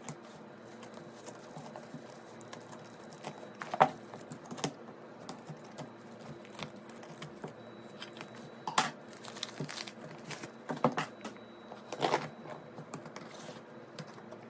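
Hands opening and unpacking a delivery package: irregular small clicks, taps and rustles of packaging being handled, with a few louder sharp clacks spread through.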